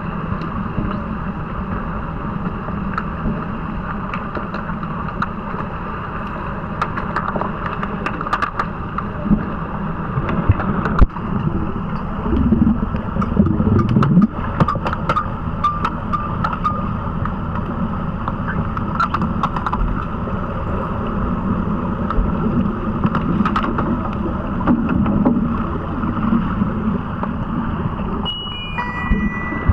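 Underwater pool noise during an underwater hockey game: a steady rushing hiss, dotted with sharp clicks and knocks of sticks and puck on the pool floor. Near the end a run of short electronic beeps at changing pitches begins.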